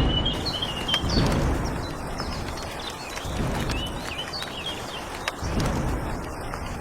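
Small birds chirping outdoors in short repeated calls, over a low, uneven rumbling background noise with a few faint clicks.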